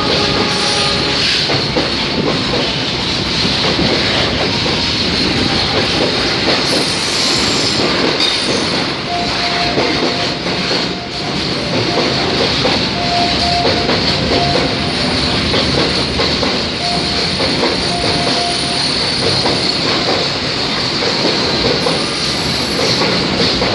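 Container freight train passing close by: a steady rumble of wagon wheels on the rails with clickety-clack over the rail joints, and short, thin wheel squeals now and then in the middle.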